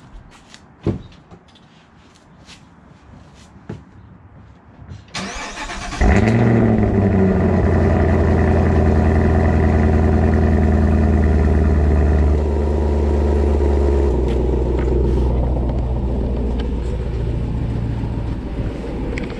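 Supercharged 6.2-litre LT4 V8 of a 2020 Camaro ZL1 1LE cranked and started about six seconds in, after a few clicks. It flares up in revs on catching, then holds a loud, steady fast idle while cold, which steps down to a lower idle about six seconds later. Heard from behind at the quad exhaust tips.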